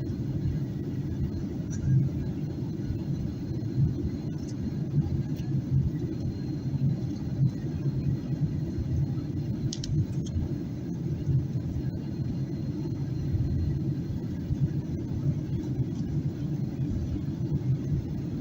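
Steady low rumble in the cabin of a Boeing 737-800 during descent: engine and airflow noise, with a couple of faint clicks about ten seconds in.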